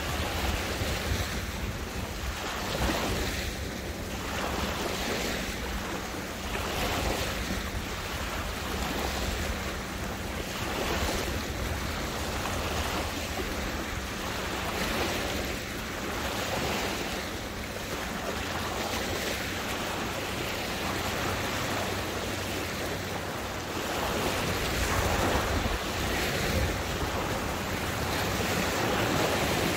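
Waterway water lapping and splashing in small waves, swelling about every two seconds, with wind rumbling on the microphone.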